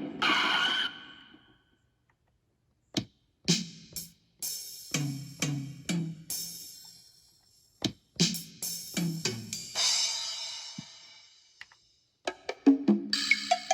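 Drum-kit sounds from the Akai MPK Mini Play MK3's built-in sound engine, played by hand: kick and snare hits and cymbal crashes in short runs, broken by brief silent pauses. A crash rings out just after the start and again about two thirds of the way through.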